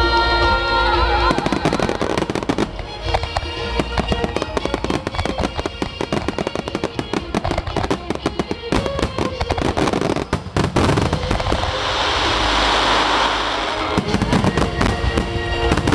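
A dense barrage of aerial firework shells bursting, with many sharp bangs and crackles overlapping in quick succession. Music plays beneath.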